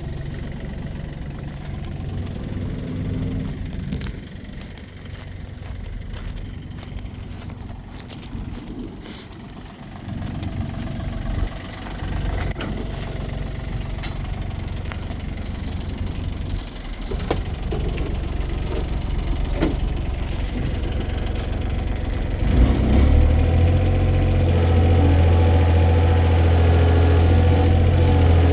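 Takeuchi TB135 mini excavator's diesel engine idling, with a few scattered clicks and knocks. About five seconds before the end it steps up to a louder, steady higher speed.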